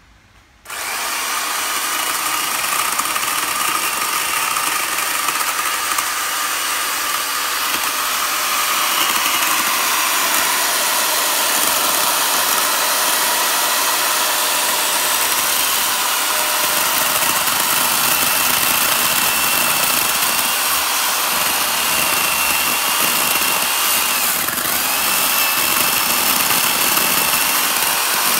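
Small electric chainsaw starting up about a second in and running steadily as it cuts into the trunk wood of a juniper bonsai.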